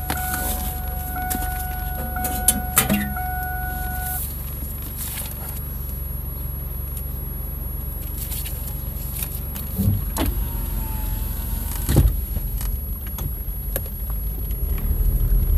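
Steady low rumble inside a car cabin, with scattered clicks, knocks and rustles of things being handled in the seat. A steady high hum stops about four seconds in.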